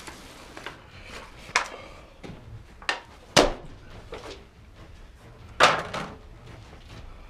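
Disposable aluminum foil pan handled on a stone countertop as ground meat is turned out of it: a few sharp knocks and foil clatters, the loudest about three and a half seconds in and a longer one near six seconds as the empty pan is set down.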